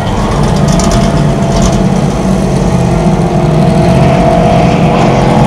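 Race ski boat's engine running hard at high speed with a steady note that grows slightly louder toward the end as the boat comes closer.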